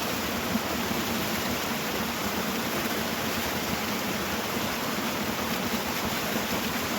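Steady rush of falling water from a small waterfall, an even noise with no breaks.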